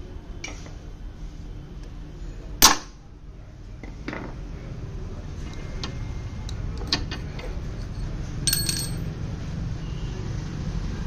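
Metallic clicks and knocks from a T-handle flywheel puller being worked on a Hero Karizma engine's magneto rotor, with one loud sharp crack about two and a half seconds in and, later, a short ringing clink of metal. A steady low hum runs underneath.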